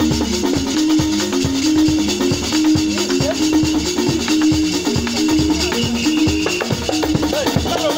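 Live dance music: a repeating line of low held notes over a shaker and drums keeping a steady beat.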